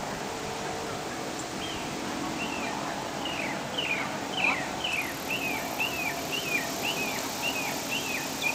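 A songbird sings a long run of repeated down-slurred whistled notes, about two a second, starting about one and a half seconds in and coming quicker near the end.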